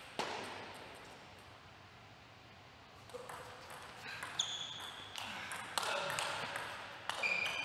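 Table tennis rally in a large hall: the plastic ball clicking off the rackets and the table in a quick back-and-forth, starting about three seconds in.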